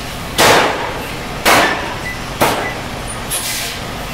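Large old stationary diesel engine turning over slowly during its start: three loud puffs about a second apart and a weaker one near the end, over a steady low hum.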